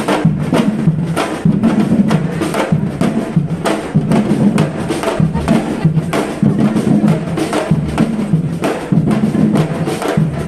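Live band music: drums and hand percussion hitting a steady, busy rhythm over a repeating bass line.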